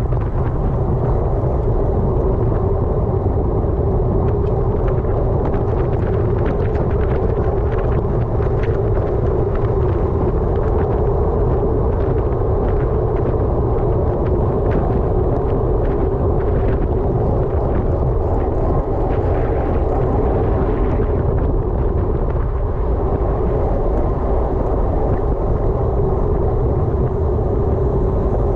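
Loud, steady wind rush on a bike-mounted GoPro's microphone while riding a road bike at speed, with a constant low hum from the ride.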